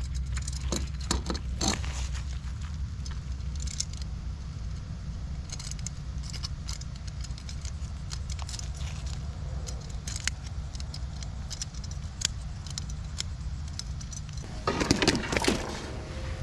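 Small metallic clicks and taps as a metal dehooker is worked at a hook in a fish's mouth on a wooden pier deck, over a steady low rumble. Near the end there is a louder scuffling burst of handling noise.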